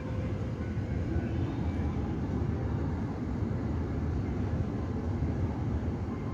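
Jet engines of a Cathay Pacific wide-body twin-jet airliner taxiing across the apron, a steady low rumble.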